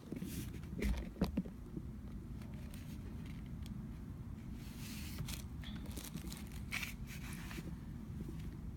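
Faint scattered clicks and rustles of small handling over a low steady hum.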